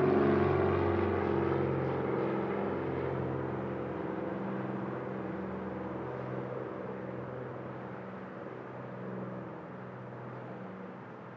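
Cessna 421 twin piston-engine airplane taking off, heard from a distance: its engines and propellers drone steadily and fade as the plane moves away.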